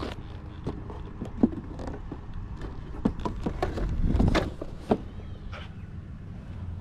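Handling noise from a cardboard craft-kit box being held, turned over and set back on a folding table: scattered light taps and clicks, with a brief low rumble on the microphone about four seconds in.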